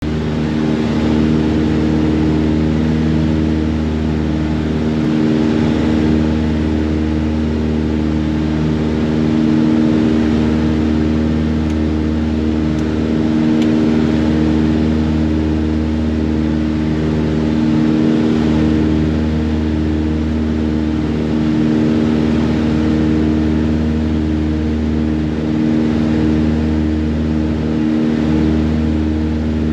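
Partenavia P68's twin piston engines and propellers droning steadily, heard inside the cockpit. The lowest tone dips briefly every four to five seconds, giving a slow throb.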